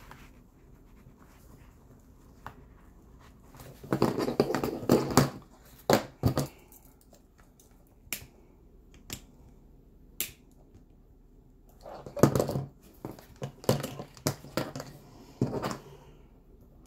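Thread being pulled through a backpack's shoulder strap while it is stitched with a sewing awl: scraping, rustling handling noise in several short bursts, with a few sharp single clicks in between.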